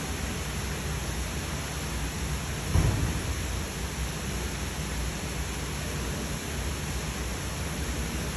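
Steady rushing background noise with no distinct source, with one brief low thump about three seconds in.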